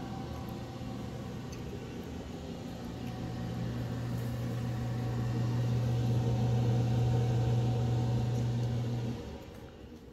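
Steady low mechanical hum that grows louder over several seconds, then cuts off abruptly about nine seconds in.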